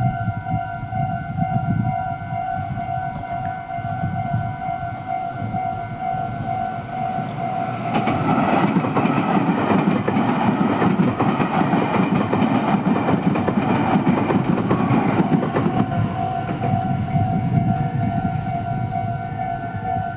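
Japanese level-crossing electronic warning sounder, Kyosan-made, ringing its steady repeating tone. A Meitetsu train runs through the crossing from about eight seconds in to about sixteen, its running noise swelling over the bell, which then sounds clearly again.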